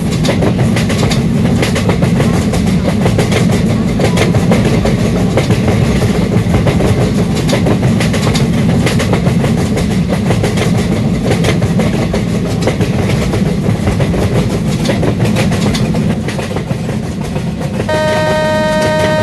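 Train running on the rails, with a loud steady rumble and rapid clicking of the wheels over rail joints. Near the end, a steady horn note begins.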